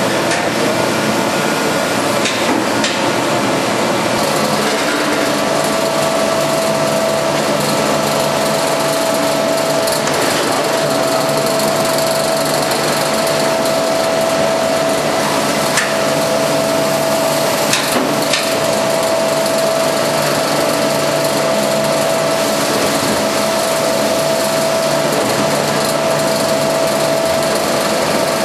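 VC999 QS8 K8 automatic belt vacuum chamber packaging machine running: a steady mechanical noise, joined about five seconds in by a steady whine, with two sharp clicks around the middle.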